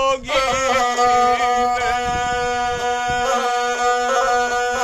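A gusle bowed along with a man's voice singing epic verse; after a brief break near the start they settle into one long held note.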